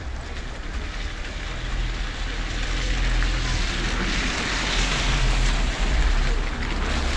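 Wind buffeting the microphone: an uneven low rumble, with a hiss that swells from about three seconds in and eases near the end.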